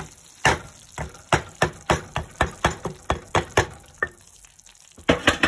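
A utensil knocking and scraping against a pan as a hot flour-and-oil roux is scraped out into red chili sauce. It is a quick run of sharp knocks, about three a second, then a short pause and a few more knocks near the end.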